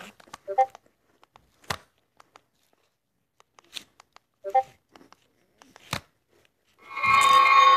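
Two short pitched blips, the same sound twice, as new chat messages pop up, with a few sharp clicks between them; then loud music comes in about seven seconds in.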